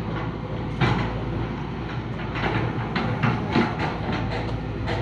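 Excavator's diesel engine running steadily while dredging mud, with several sharp knocks of metal on metal, the first about a second in and a cluster of them in the second half.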